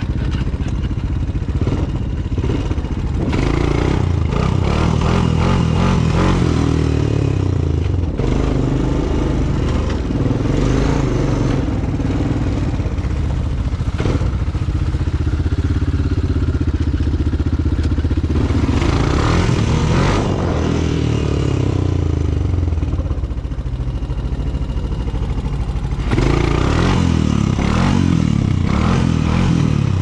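Kawasaki ATV (four-wheeler) engine running while being ridden, its pitch rising and falling as the throttle is worked, with rattling from the machine over the ground.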